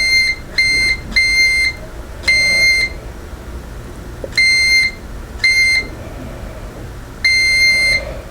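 DT9205A digital multimeter's continuity buzzer beeping seven times in uneven lengths, from short blips to nearly a second, as the door switch is pressed and released. Each beep is a single high steady tone that cuts in and out sharply, showing that the switch closes and opens the circuit correctly.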